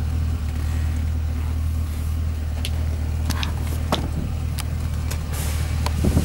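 A car engine idling: a steady low hum, with a few light clicks over it in the second half.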